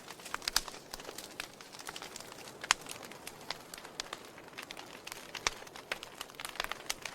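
Wood fire in a fireplace crackling, with irregular sharp pops over a faint hiss. The loudest pops come about two and a half seconds in and again about five and a half seconds in.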